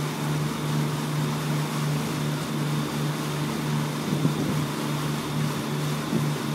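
A sailboat's auxiliary engine running steadily under motor, a low, even drone over a steady hiss.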